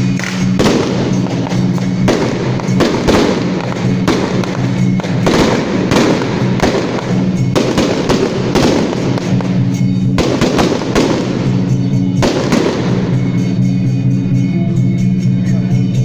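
Strings of firecrackers crackling in dense rapid bursts, stopping about three-quarters of the way through. Under them, loud music with sustained low notes plays throughout.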